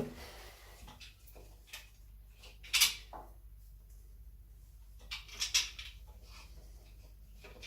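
A few small clicks and knocks with light rubbing as a wall switch and its mounting screws are handled and fitted into the wall box. The sharpest click comes about three seconds in, with a short cluster a little after five seconds.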